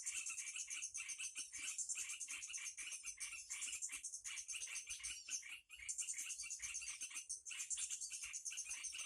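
Tropical forest chorus after rain: a steady high shrill of insects with frogs calling underneath in quick, short repeated notes, several a second.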